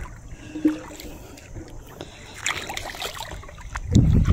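Wading through shallow, muddy pond water: the sloshing and splashing of footsteps, quiet at first, then heavier splashes near the end.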